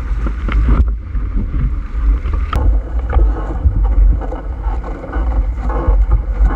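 Wind buffeting the microphone and water rushing and splashing along the hulls of a small plywood proa sailing at speed. A sharp knock stands out about two and a half seconds in.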